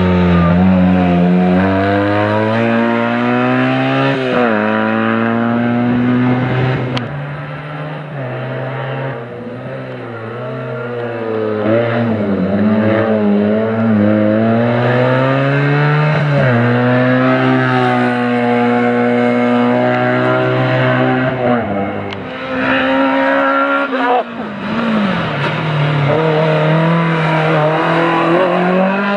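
Race-prepared Fiat 500's small engine revving hard and falling back over and over as it weaves through a cone slalom, its pitch climbing and dropping with each throttle lift and gear change. It fades somewhat for a few seconds partway through, and another small rally car's engine revs in near the end.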